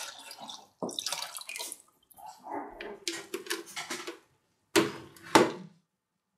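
Water poured from a container into another vessel, splashing in uneven spells, followed by two sharp knocks a little over half a second apart near the end.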